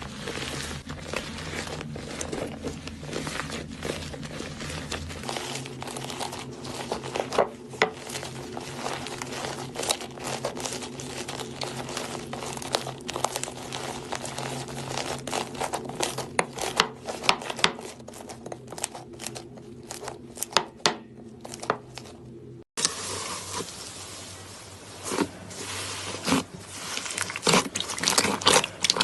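Slime being squished, pressed and stretched by hand, giving a dense run of irregular crackles, pops and small clicks. The sound breaks off suddenly about three quarters of the way through and picks up again with louder, sharper crackling.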